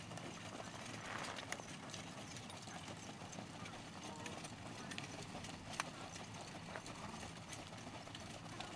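Hooves of a four-in-hand team of ponies trotting on sand, a scatter of soft irregular hoofbeats, with one sharper knock about six seconds in.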